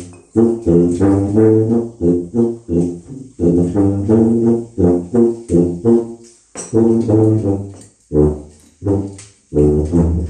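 Solo tuba playing a melody in short, separated notes that move up and down in pitch.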